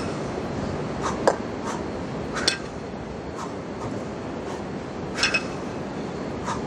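Two 20 kg kettlebells clinking against each other with a short metallic ring as they are lifted between the chest and overhead. There are a few sharp clinks spaced one to three seconds apart, some in quick pairs, over a steady background hiss.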